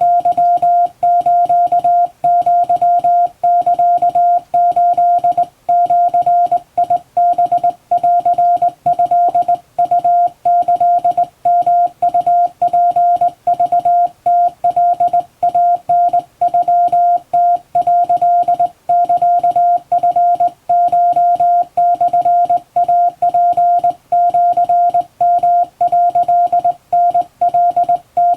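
Japanese wabun Morse code sent by hand on a straight key, heard as a single steady beep switched on and off in an unbroken stream of dots and dashes.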